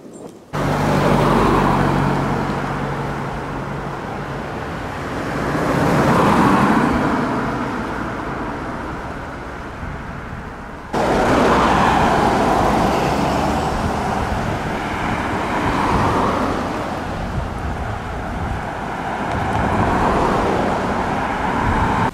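Road traffic: cars and a pickup truck driving past one after another, each a swell of engine and tyre noise rising and fading as it goes by. The noise starts abruptly just after the start and jumps again about halfway through.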